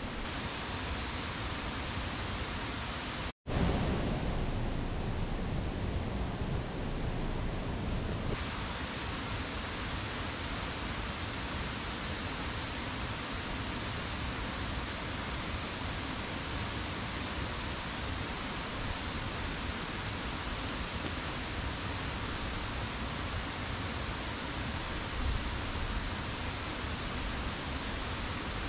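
Steady rushing outdoor background noise, even and unbroken; it drops out for an instant about three seconds in.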